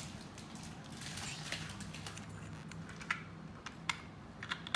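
Small plastic building bricks clicking as they are handled and pressed into place, with a few sharp clicks spaced apart in the second half.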